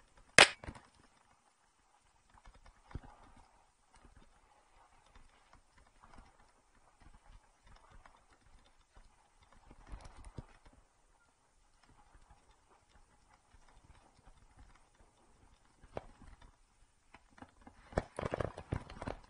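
2018 Trek Remedy 9.8 full-suspension mountain bike rolling down a steep, loose dirt trail: scattered knocks and rattles from the tyres and frame over rocks and roots, with one sharp knock about half a second in and a denser, louder run of clattering near the end.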